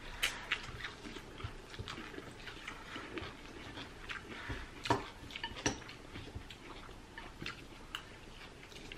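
Close-up eating sounds: rice-vermicelli noodles being slurped and chewed, with chopsticks now and then clicking against ceramic bowls, a few clicks sharper than the rest.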